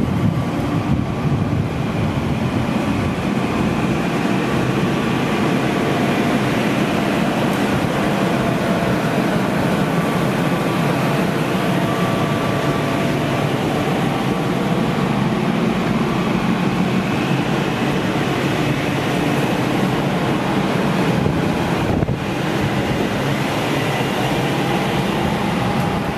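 Passenger train departing behind a ChS7 electric locomotive: the locomotive and then its coaches roll past, a steady running noise of wheels on the rails with faint steady high tones.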